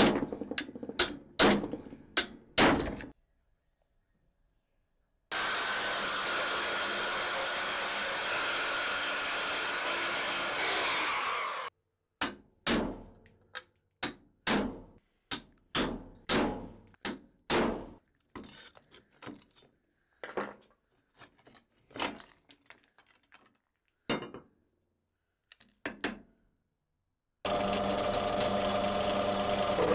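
Workshop tools at work on an antique reel mower: a few sharp knocks, then several seconds of a steady running power tool, then a long run of knocks at about one or two a second that grow fainter, with the power tool starting again near the end.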